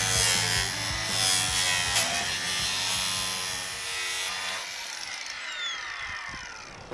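Angle grinder cutting off the bottom end of a white vinyl siding corner post: the motor whines under a rasping grind for about four and a half seconds, then the trigger is released and the disc spins down in a falling whine.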